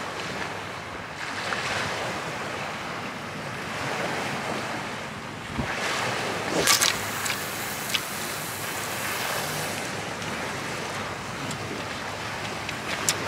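Wind on the microphone with waves washing against the shore, a steady rush. About halfway through, a short sharp swish as a sea fishing rod is cast overhead, and a light click near the end.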